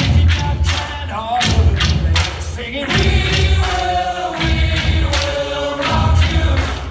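Dance music with a group of voices singing over heavy, repeated drum beats, played over loudspeakers.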